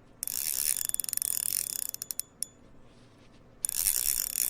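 Carp fishing reel ticking rapidly as a hooked carp pulls line off the spool during a run. The clicking comes in two spells with a short lull between.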